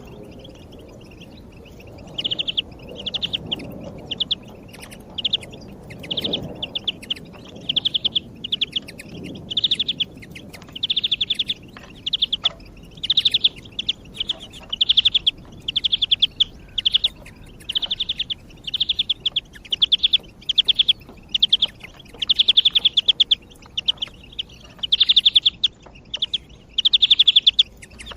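European greenfinch (verderón) singing: a long series of short, rapid trills repeated about once a second, starting about two seconds in.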